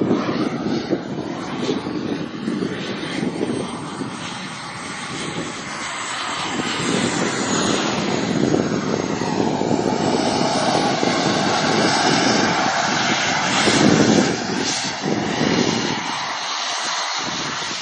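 Jet aircraft flying past at an airshow: a continuous rushing engine noise with a high whine that slides in pitch. It swells to its loudest about fourteen seconds in, then drops away.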